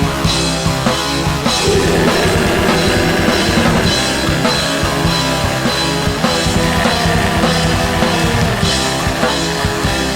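Orchestral-symphonic black metal: a full band with a drum kit keeping steady bass-drum and snare hits under dense, sustained layers of instruments, without vocals.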